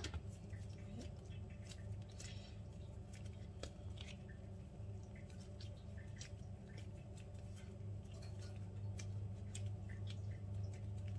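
Hands shaping a piece of soft yeast bread dough into a ball on a silicone baking mat: faint soft sticky handling sounds and small ticks, over a steady low hum. A sharp click at the very start as a plastic dough scraper is set down on the mat.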